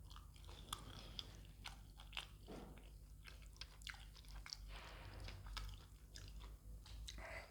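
A person chewing and biting food close to the microphone: irregular crisp clicks and short crunches, mouth sounds of eating.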